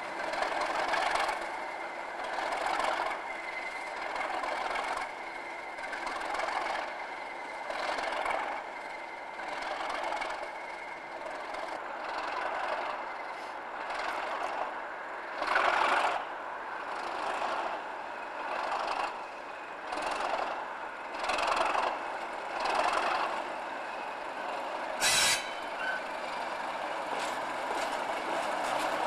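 English Electric Class 37 diesel locomotive running slowly, its engine note steady with a faint steady whine, over a rhythmic clatter of wheels crossing rail joints about every one to two seconds. A short sharp burst of noise comes about 25 seconds in.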